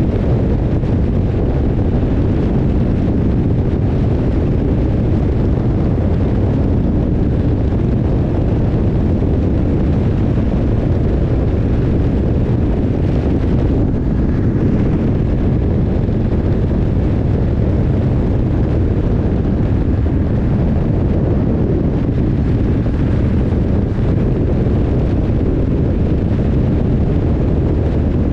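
BMW R 1150R's flat-twin boxer engine running steadily while the motorcycle is ridden, with a rush of wind over the microphone.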